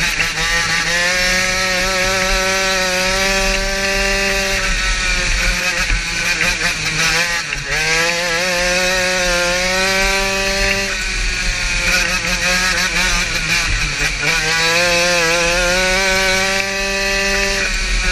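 Racing kart's small engine heard onboard at full race pace, revving up along each straight and dropping off into the turns: the pitch climbs for several seconds and then falls about three times as it laps.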